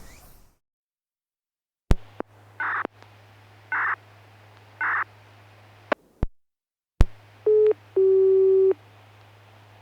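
Outdoor public-address loudspeaker of a disaster-prevention radio system switching on ahead of its chime: sharp relay clicks, a steady low amplifier hum, and three short beeps about a second apart. Near the end come two electronic tones, a short one and then a slightly lower one held for under a second.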